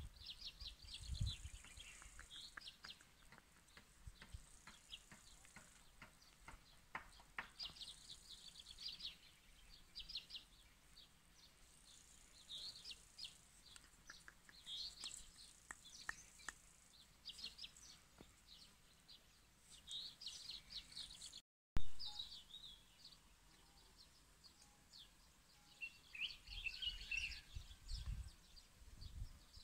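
Small birds chirping and singing in short, repeated phrases, with a few low rumbles near the start and near the end. About two-thirds through, the sound drops out for a moment and comes back with a click.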